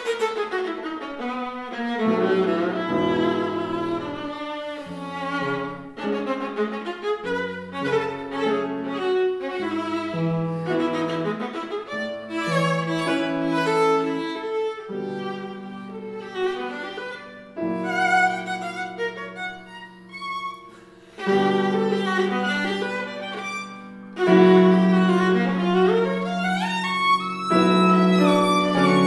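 Viola played with a bow in fast, lively runs of many quick notes, with piano accompaniment underneath. The playing grows louder about three-quarters of the way through.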